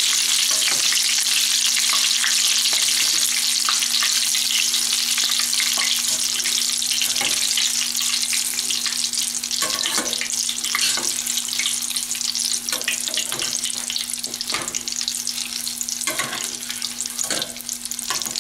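Batter-coated banana chunks deep-frying in a pot of oil at about 350°F: a steady, dense sizzle with scattered small pops and crackles, easing a little toward the end.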